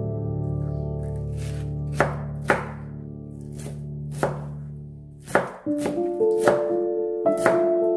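Kitchen knife chopping shredded white cabbage on a plastic cutting board: irregular sharp knocks of the blade on the board, a few in the first seconds and quicker from about five seconds in. Soft keyboard music plays underneath.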